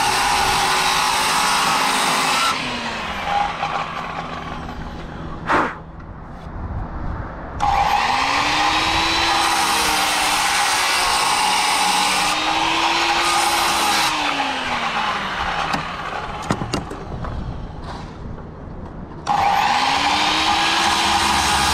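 Corded circular saw ripping lengthwise along a pine board, its motor whining under load. The cut runs in three long stretches, twice falling back for a few seconds, with a sharp knock in the first lull.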